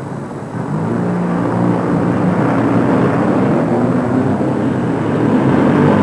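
Motor vehicle engines running in slow traffic, with a steady low engine hum that grows louder about half a second in as vehicles pull away.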